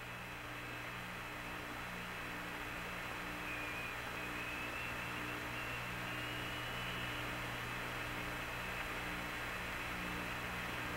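Hiss and steady electrical hum of an open radio voice channel with no one talking. A low hum in the channel pulses on and off at a steady rate, a little faster than once a second, and a faint high whistle wavers through the middle.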